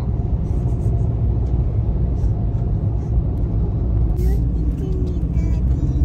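Steady low engine and road rumble inside the cab of a Ford Ranger Raptor pickup driving along a paved road.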